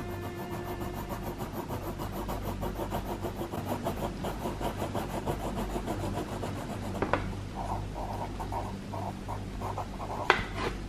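A graphite drawing pencil scratching on paper in quick, even back-and-forth strokes as a swatch is shaded in with a 3B pencil. After about seven seconds the strokes become shorter and separate, as in handwriting, and there is a sharp tick about ten seconds in.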